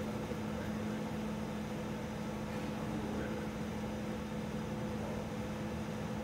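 Steady mechanical hum of building machinery: a constant low tone over an even hiss, unchanging throughout.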